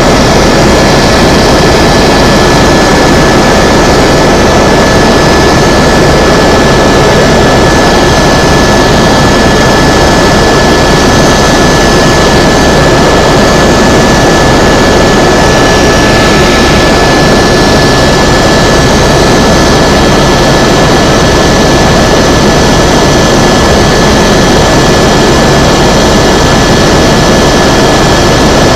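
Helicopter in flight: a loud, steady drone of engine and rotor noise, with a steady high whine running through it.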